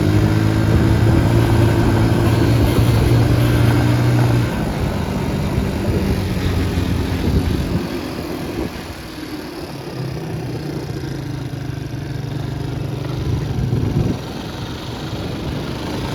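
2011 Can-Am DS90 ATV engine running at a fast, steady idle, then dropping to a lower, quieter run about four seconds in, picking up again briefly and falling off once more near the end.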